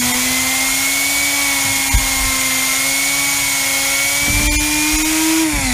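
A DIY compressed-air turbine spinning on 50 PSI shop air: a steady whine over the hiss of rushing air. Its pitch creeps up as the rotor climbs toward 17,000 RPM, then starts falling near the end as it spins down.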